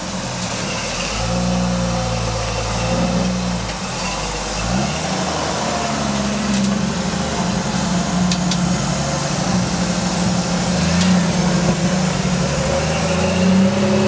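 Lifted Jeep Wrangler rock crawler's engine working up a wet rock ledge, its revs rising and falling repeatedly as it is throttled over the rock.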